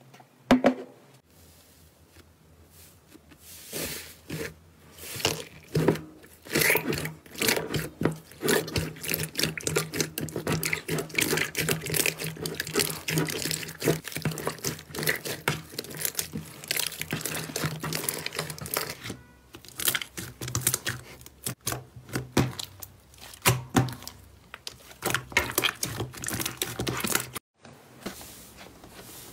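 Hands squishing, stretching and pressing slime: a dense run of wet crackles, pops and tearing sounds, after a single sharp snap about half a second in.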